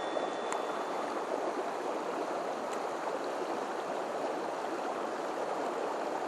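Small mountain stream running high after heavy rain: a steady rush of water.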